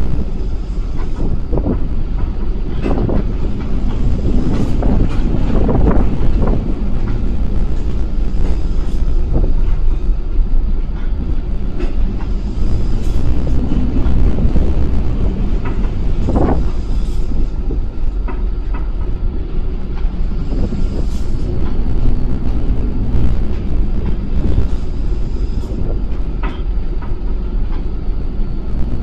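Loud, steady rumble of a bulk carrier ploughing through a rough sea, heaviest in the low end, with scattered knocks and rattles. The sharpest knock comes about midway.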